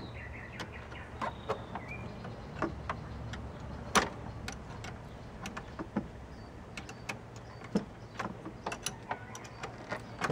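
A 10 mm open-end wrench working a hose clamp's screw, metal clicking and tapping irregularly as the wrench is turned and re-seated to loosen the clamp, with the loudest click about four seconds in.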